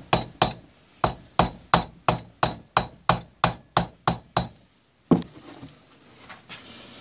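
Repeated sharp knocks, about three a second, as the Honda Rebel 250's air-cooled twin-cylinder block is tapped down over the pistons and their clamped rings. The knocks stop after about four and a half seconds, and one more follows shortly after.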